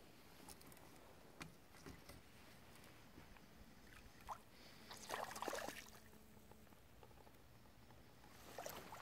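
Water splashing as a hooked pike thrashes at the surface and is steered into a landing net, the loudest splash about five seconds in and another starting near the end, with a few faint knocks before.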